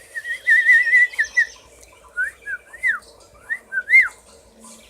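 Clear whistling: a warbling whistle for about a second and a half, then a few short notes that rise and fall.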